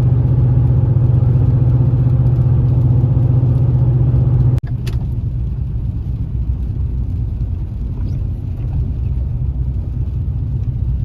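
Truck driving: a steady, loud low engine hum over road rumble. About four and a half seconds in, the sound breaks off and goes on as a slightly quieter, rougher rumble.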